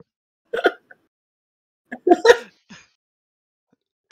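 Two short bursts of a person's voice over a voice chat, about half a second in and again about two seconds in, with dead silence between them.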